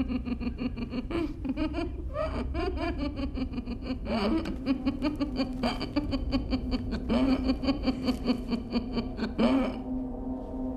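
A person laughing in quick, repeated bursts, over a steady low droning tone from the film's score.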